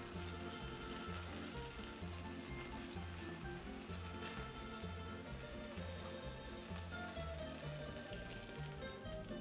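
Eggplant slices frying in hot vegetable oil in a non-stick pan: a steady sizzle with fine crackling. Background music with a regular bass line plays under it.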